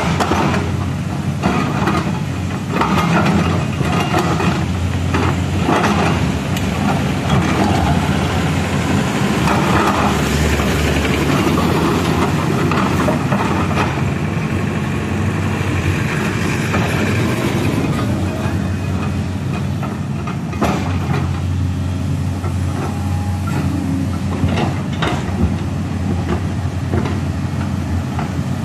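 LiuGong crawler excavator at work: its diesel engine runs steadily with a low hum, while the bucket scrapes and drags soil, with scattered scrapes and knocks from earth and debris.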